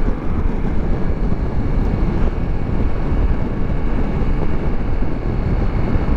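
Steady wind noise buffeting the microphone over the engine and road noise of a Ducati Multistrada V4 S motorcycle cruising at about 80 km/h.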